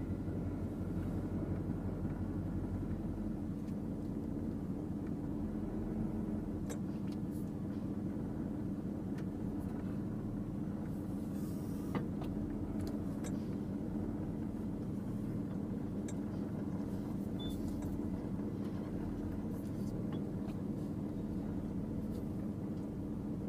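Car engine running steadily at low speed, a constant low hum with a few faint clicks and ticks over it.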